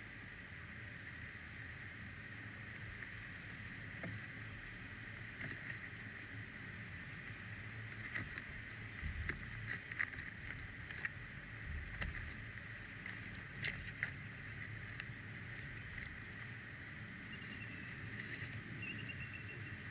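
Faint outdoor ambience through a nest camera's microphone: a steady hiss and low wind rumble, with scattered light clicks and rustles from about four seconds in. Near the end come two faint, thin, high chirps.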